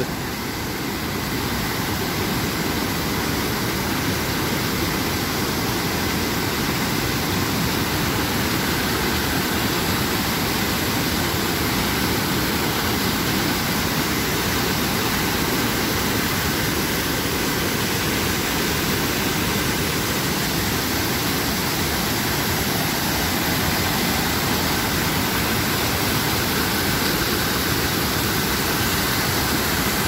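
Turbulent mountain river rushing over boulders and down small cascades of white water, a steady, unbroken rush of water.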